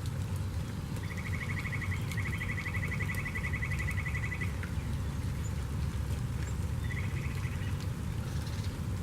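Steady rain with scattered drop ticks, and a songbird singing a rapid, even-pitched trill: a long one starting about a second in and lasting some three seconds, then a short one about seven seconds in.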